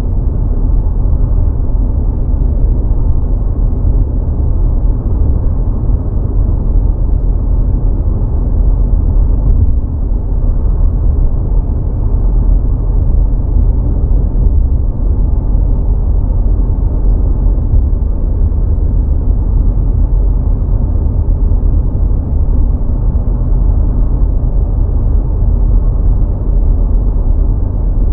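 Steady low rumble of car road and engine noise while driving along a highway at speed.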